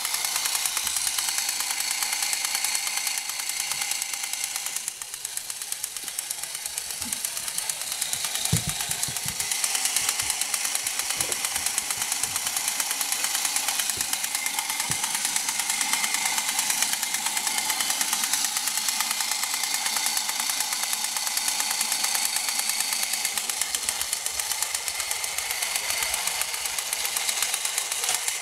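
A 1960s tin battery-operated toy helicopter running: its small electric motor and gears whir and rattle steadily while the rotor spins. A few low knocks come around the middle.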